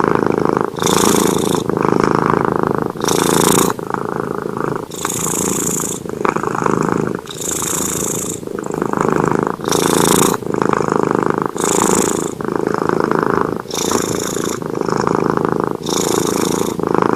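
Domestic cat purring continuously, rising and falling with its breathing, about one breath every two seconds. Each breath has a hissier phase and a lower buzzing phase.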